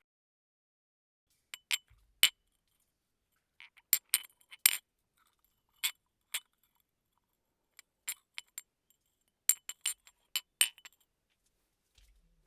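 Tea glass clinking: a series of short, sharp glass clinks in irregular clusters of two to five, with silence between.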